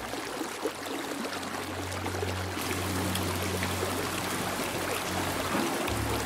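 Shallow mountain stream rushing and splashing over rocks, heard close to the water's surface.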